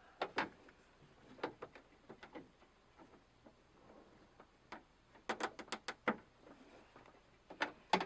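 Light metallic clicks and taps of hand tools and lock parts being worked inside a truck door, with a quick run of about six clicks a little past five seconds in.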